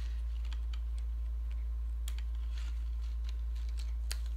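Faint, scattered ticks and small scratchy clicks of a craft knife's tip picking at the backing of double-sided tape on a paper box, over a steady low hum.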